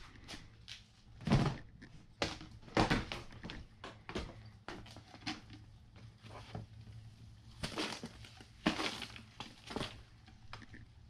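Handling noise from fishing tackle: an irregular run of clicks, knocks and short rustling scrapes as a spool of fishing line and a plastic tackle box are handled. Three louder scrapes stand out, one near the start, one about three seconds in, and one late.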